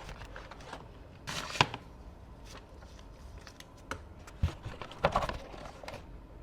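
Hands unpacking the keyboard from its box: irregular rustling and scraping of packaging, broken by a few sharp knocks and a low thump.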